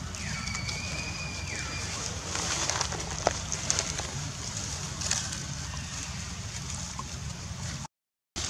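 Outdoor ambience: a high, level whistled call lasting about a second and a half near the start, then faint scattered crackles like dry leaves being stirred, over a steady low rumble. The sound cuts out for a moment near the end.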